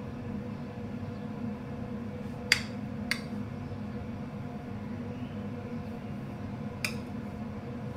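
A metal spoon clinks against a plate three times while scooping potato samosa filling: two clinks about half a second apart a few seconds in, the first the sharpest, and one more near the end. A steady low hum runs underneath.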